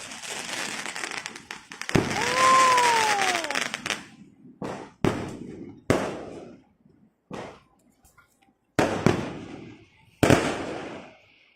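Aerial fireworks bursting: a dense crackling hiss with a loud bang about two seconds in, then a string of about six separate booms, each dying away, a second or so apart.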